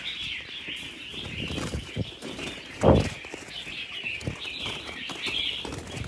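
Red-whiskered bulbuls fluttering and flapping in a wire cage as a bird is handled, with rustling and knocks, the loudest flurry about three seconds in. A dense high chatter of many caged birds runs throughout.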